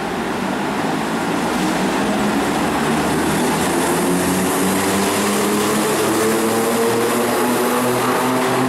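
FS class E656 electric locomotive pulling a train away and passing close by. Its traction motors whine in several tones that climb slowly in pitch as it gathers speed, over running noise that grows a little louder as it passes.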